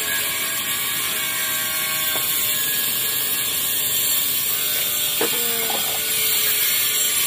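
Steady heavy rain: a loud, even hiss that does not let up, with a brief small clack about five seconds in.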